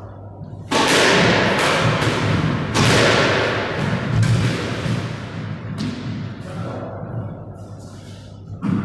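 Squash rally: the ball cracking off rackets and the court walls, several sharp hits a second or so apart, each ringing on in the echo of the enclosed court.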